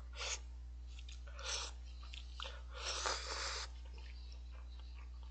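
A person slurping instant cup-ramen noodles off chopsticks and chewing: three short slurps, the longest about three seconds in and lasting under a second, with small mouth clicks between them.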